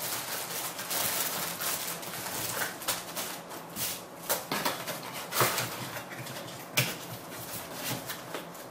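Accessories being packed into a small cardboard box by hand: plastic bags rustling and cardboard scraping, with several sharp taps and knocks as items and flaps go in.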